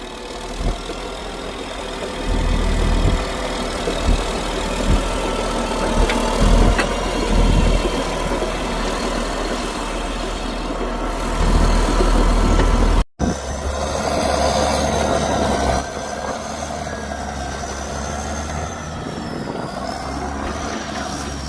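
Motor vehicle engine running with a steady low rumble and occasional thumps. The sound breaks off briefly about thirteen seconds in.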